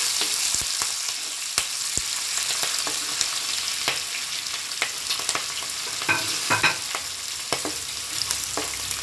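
Green and dried red chillies, ginger and garlic sizzling steadily in hot oil in a non-stick pan, stirred with a spatula that clicks and scrapes against the pan now and then, most busily about six seconds in.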